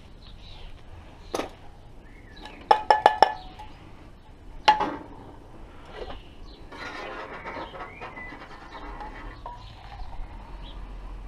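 Metal camping pot clinking: a quick run of ringing knocks about three seconds in and one more clink a moment later. Then just-boiled water is poured out of the pot for about three seconds.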